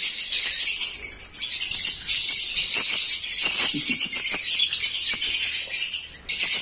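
A crowd of caged lovebirds chattering and chirping together in a dense, high-pitched din, with two brief lulls, one about a second in and one near the end.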